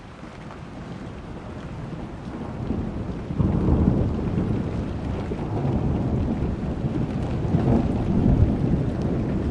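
Thunderstorm: rolling thunder that builds, breaks louder about three and a half seconds in and keeps rumbling, over steady rain.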